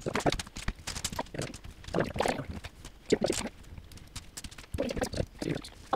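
Loose plastic Lego Technic pieces clicking and rattling as a hand rummages through them in a tray: a string of irregular small clicks.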